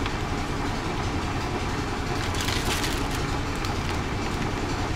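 Washing machine running with a steady rumble, and plastic sandwich bags crinkling briefly about halfway through as they are handled.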